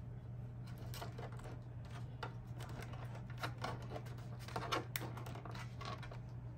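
Irregular small clicks and taps from hands working a disc player and its DVD, over a steady low hum.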